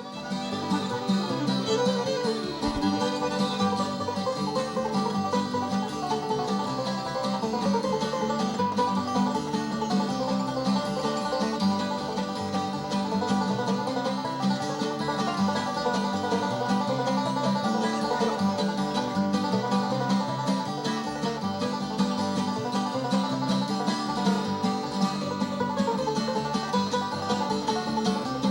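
Bluegrass band playing an instrumental tune, with picked banjo most prominent over other plucked strings.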